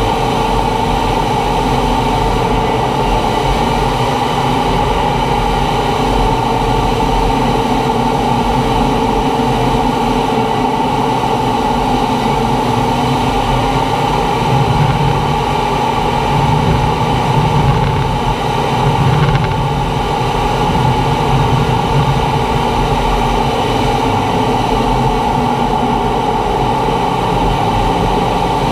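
Steady engine and air noise aboard a T-45 Goshawk jet trainer in low-level flight, its single Adour turbofan running at a constant setting, a steady hum and whine over a broad rush. A deeper rumble swells from about halfway in to about two-thirds through, then settles back.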